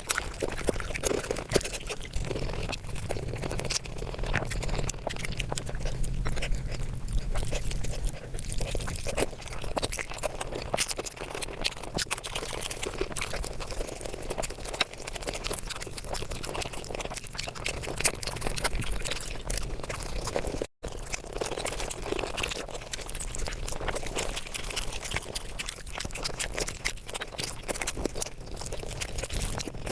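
Close-miked mukbang eating sounds sped up five times: a dense, continuous stream of chewing, crunching and wet smacking clicks, briefly cut off about two-thirds of the way through.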